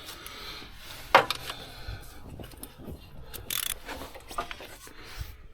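Metal hand tools working on an engine, with irregular clicks and clanks and one sharp knock about a second in. A short hiss comes in the middle.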